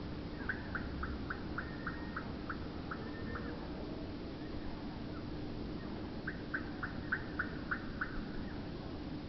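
Common blackbird giving short, sharp call notes, about three or four a second, in two runs: one near the start and one over the last few seconds. A steady low hum runs underneath.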